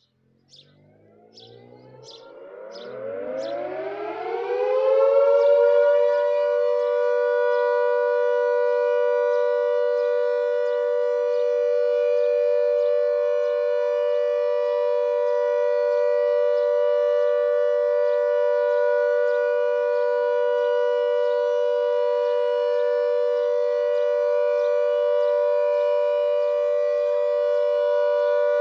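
Air raid siren winding up, its pitch rising over the first five seconds or so, then holding one loud steady note: the 'All Clear' signal.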